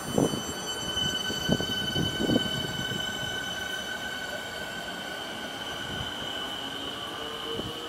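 Siemens Nexas electric suburban train pulling away, giving a steady high whine made of several tones, with a few heavy knocks from the wheels in the first couple of seconds.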